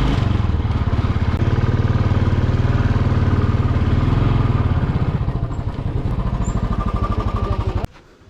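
Motorcycle engine running with a fast, even pulse. It eases off a little past the middle and stops abruptly near the end.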